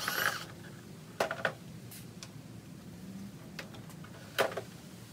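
Scattered sharp clicks and light knocks from hands working the plastic lid and latch handle of a GMT400 Chevrolet/GMC truck center console as a new handle is fitted. The strongest knock comes near the end.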